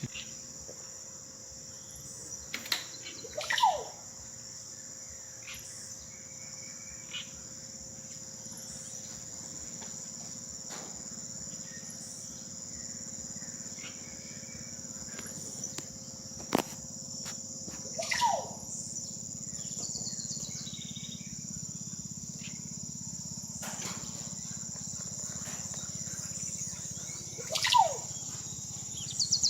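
Amazon rainforest chorus: a steady high-pitched drone of insects, over which a bird gives a falling whistled call three times, near the start, in the middle and near the end.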